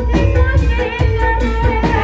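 Gending ebeg, the Banyumas gamelan music that accompanies the ebeg horse dance, played live: drum strokes in a steady beat under pitched instruments, with a voice singing over them.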